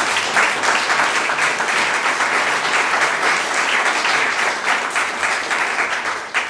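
Audience applauding: dense, steady clapping from many hands that starts to fade near the end.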